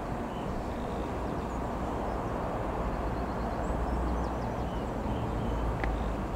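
Distant steady rumble of a Ryanair Boeing 737-800's two CFM56 jet engines as the airliner passes high overhead, with faint bird chirps above it.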